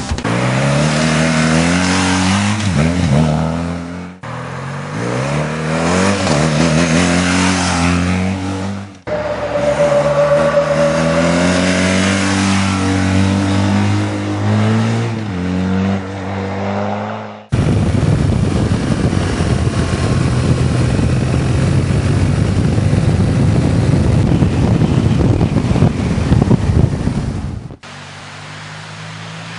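BMW R1200GS flat-twin boxer engine accelerating hard through the gears: the note climbs and drops back at each shift, several times over. Past halfway comes a stretch of about ten seconds of loud rushing engine and wind noise as the bike goes by at speed. A steadier, quieter engine note follows near the end.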